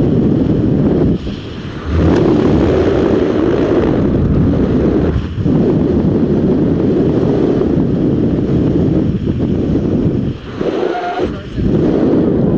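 Wind noise from the airflow of hang-glider flight buffeting a helmet-mounted camera microphone: a loud, steady rushing that eases briefly a few times.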